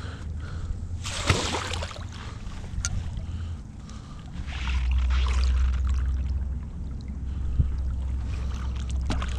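Shallow river water sloshing and splashing as a wet magnet-fishing rope is hauled in and piled in the water, with a sharp splash about a second in, over a steady low rumble.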